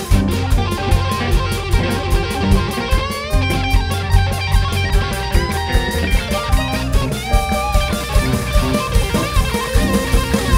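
A band recording: electric guitar playing bent, sliding notes over bass and drums, with a steady beat.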